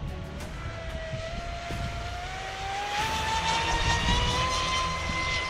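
High-speed RC catamaran's Turnigy brushless electric motor and propeller, whining at full throttle on a speed run. The pitch climbs steadily for about four seconds, then holds high.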